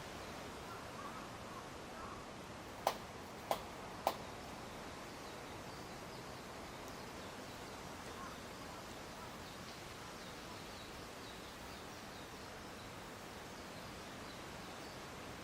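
Wind moving through leafy trees and branches, a steady rustling hiss. About three seconds in, three sharp clicks or knocks come about half a second apart.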